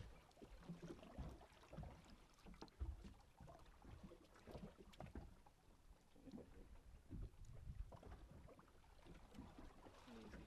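Faint, irregular low thumps and scattered clicks from a small fishing boat's hull and gear knocking about.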